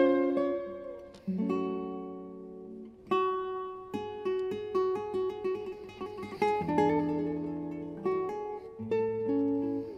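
Solo nylon-string classical guitar playing: plucked notes and chords ringing out and fading, with a quicker run of single notes in the middle.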